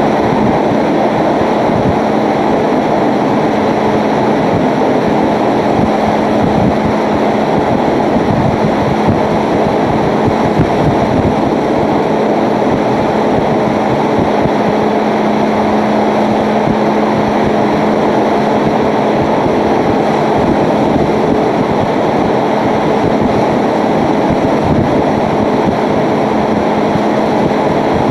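Hurricane-force wind with wind-driven rain and spray: a loud, steady rushing noise with no letup, and a steady low hum underneath.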